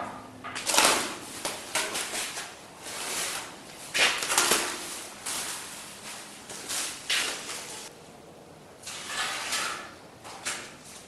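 Plastic masking sheet and tape crinkling and rustling in irregular bursts as they are peeled and crumpled off a bed side panel.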